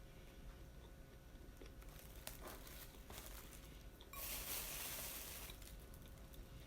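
Quiet eating and handling sounds while eating yakitori, with a loud crinkling rustle lasting about a second and a half just past the middle.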